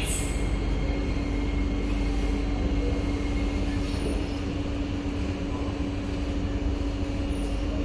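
Steady hum inside a C151A MRT train carriage standing at a station: a constant low tone over an even low rumble.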